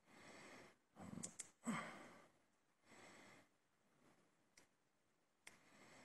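Quiet breaths close to the microphone, with a few small sharp clicks a little over a second in.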